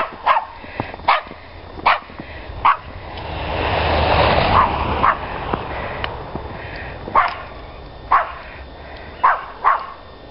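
A dog barking repeatedly, single barks roughly a second apart with a few longer gaps. Midway a broad rushing noise swells up and fades away under the barks.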